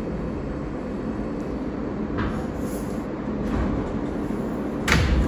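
R160A subway car running along the track between stations, a steady rumble of wheels on rail heard from inside the car, with a sharp clack near the end.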